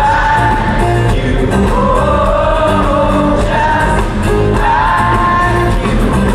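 Live pop-rock band playing loudly, with a male lead vocal and a group of women singing along.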